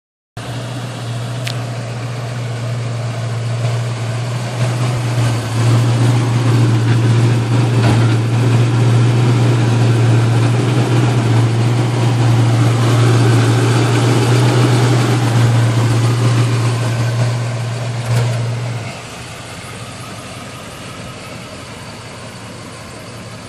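The engine of a 1972 Chevrolet donk running steadily at idle, a deep even drone. About three quarters of the way through its level drops noticeably and stays lower.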